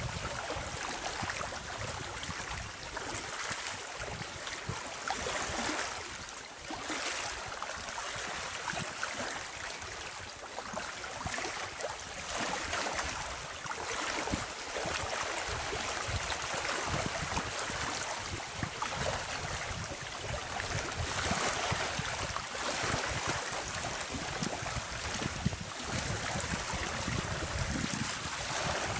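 Small waves lapping along a lakeshore: a steady, gently surging wash of water, with wind in the background.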